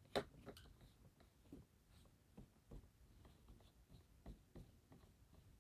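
Near silence broken by a series of faint, short clicks and knocks, the loudest one just after the start.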